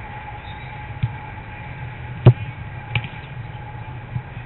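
A football being kicked: four separate thuds, the loudest and sharpest a little past the middle, over a steady low hum.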